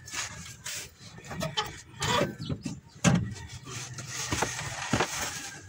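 Irregular knocks and clunks of metal drivetrain parts being handled under a Suzuki Multicab during transmission removal, with a few sharper knocks in the second half.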